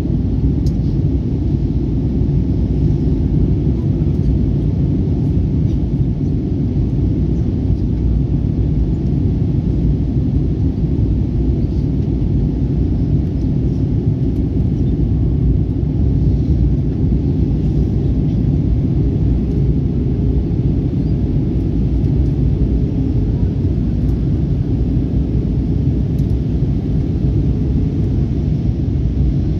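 Steady cabin rumble of an Airbus A320-family airliner in descent, heard from a window seat: engine and airflow noise, deep and even. A faint steady hum joins about two-thirds of the way through.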